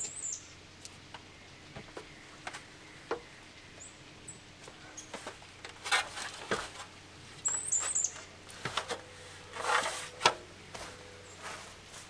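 Quiet scattered clicks, knocks and rustling of hands working at a wall vent and feet stepping down a stepladder, loudest about halfway through and again near the end. A few brief high bird chirps come over it.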